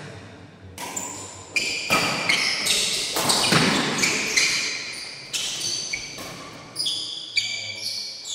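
Badminton doubles rally: rackets striking the shuttlecock in several sharp hits, mixed with short high squeaks of sports shoes on the court floor.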